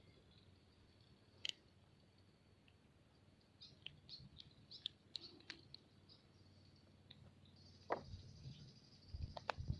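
Near silence with faint high chirping and a few scattered small clicks, then a couple of low knocks near the end.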